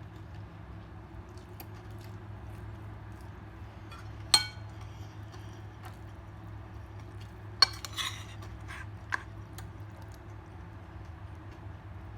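Dishes clinking on a table during a meal: a single ringing clink, then a quick cluster of clinks and knocks a few seconds later, over a steady low hum.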